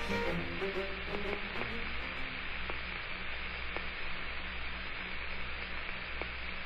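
Steady static hiss with a low mains hum and a few faint scattered clicks, like the surface noise of an old film soundtrack. String music fades out in the first moment.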